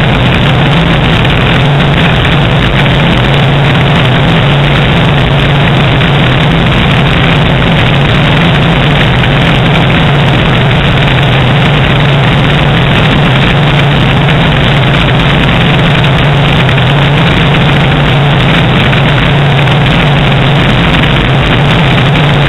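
Single-engine light aircraft's engine and propeller droning steadily in flight, heard from a camera mounted outside on the wing, with a rush of airflow noise.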